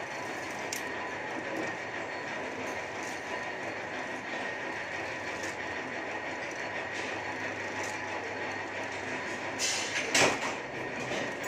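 Press running with a steady mechanical hum and faint whine as its ram forces a flat steel strip down into a die, bending it into a pole-mounting bracket clamp. One loud clank sounds about ten seconds in.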